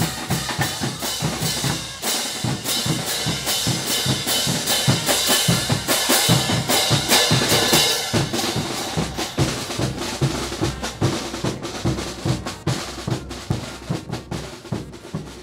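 Carnival percussion band drumming a fast, steady rhythm on bass and snare drums, fading out near the end.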